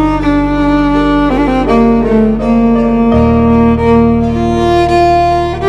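Sad background music: a slow bowed-string melody of long held notes that slide from one to the next, over a low sustained bass that changes note about three seconds in.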